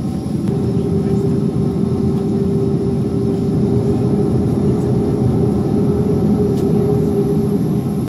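Boeing 737 cabin noise with the jet engines running on the ground: a steady rumble with a constant mid-pitched hum, which drops out for a moment at the start and comes back about half a second in.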